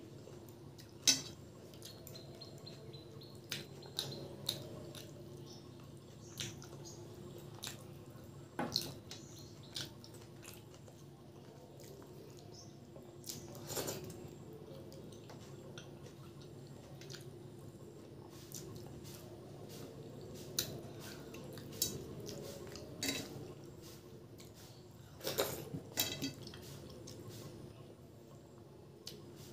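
Eating rice and curry by hand from a stainless steel plate: fingers mixing and scooping the wet food, with scattered sharp clicks and scrapes against the metal plate, over a low steady hum.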